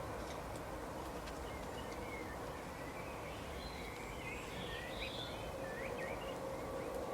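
Outdoor background noise with a faint steady hum, and a few short bird chirps about halfway through.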